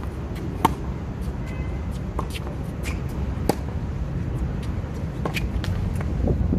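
Tennis balls struck by rackets in a baseline rally on a hard court: sharp pops every second or two, the loudest from the near player about half a second in, with fainter ball bounces and hits from the far side. A steady low rumble runs underneath.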